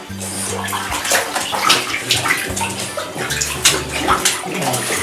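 Bathwater splashing and sloshing in a filled tub as a French bulldog paddles at it with its front paws, in many quick, sharp splashes.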